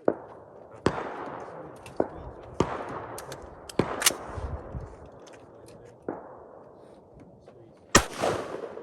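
About eight gunshots at irregular intervals, from a fraction of a second to two seconds apart, each followed by a short echoing tail. The last shot, near the end, is among the loudest.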